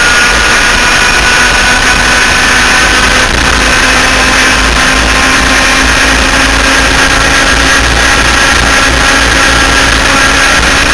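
Twin 100cc two-stroke engines of an enduro laydown kart running at high revs down a straight, holding a steady pitch, heard onboard under a heavy rush of wind noise.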